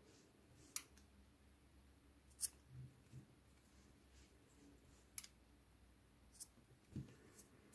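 Small scissors snipping the cotton thread ends of a crocheted piece: a few faint, sharp clicks spread over several seconds, otherwise near silence.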